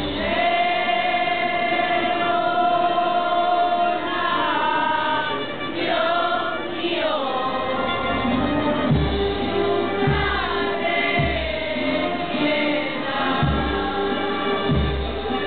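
Many voices singing a slow religious hymn together, with long held, gliding notes. From about halfway through, a bass drum beats slowly under the singing, roughly once a second.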